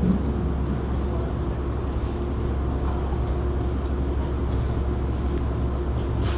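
A vehicle engine running steadily with a low, even rumble, over faint street noise.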